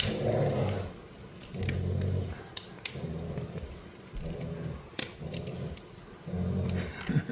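Two dogs growling in play during a tug of war over a toy: short low growls that come in about six bouts, with a few sharp clicks in between.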